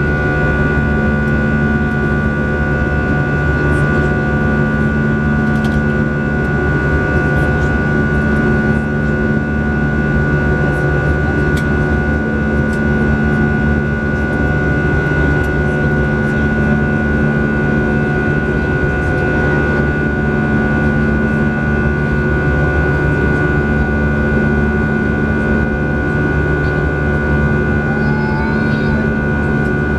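Airbus A320 turbofan engines heard from inside the passenger cabin in flight: a steady loud drone with a high, even whine over it. A low hum swells and fades every few seconds.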